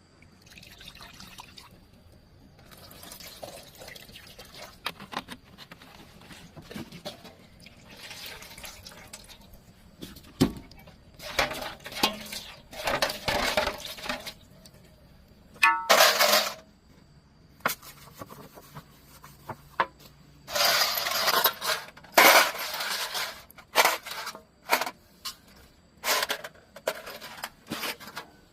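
Metal tools and parts clinking, knocking and scraping as they are handled, with several louder bursts of rushing noise in the second half.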